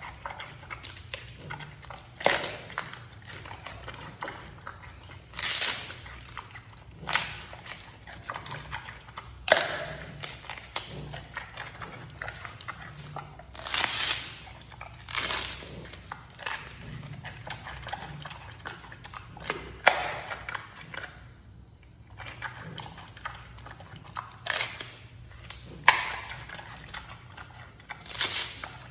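Giant panda biting and chewing bamboo shoots: irregular crisp crunches and snaps, with a louder crunch every few seconds and a brief pause in the chewing about two-thirds of the way through.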